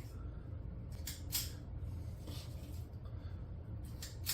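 A scoop scraping biscuit dough out of a mixing bowl and dropping it into a Dutch oven: a few soft scraping strokes, over a steady low hum.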